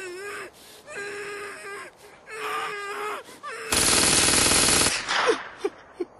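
A young man's muffled sobbing and wailing through a taped mouth, in several drawn-out cries. Then, past the middle, a burst of automatic gunfire lasting about a second, the loudest sound here, followed by a few short faint sounds.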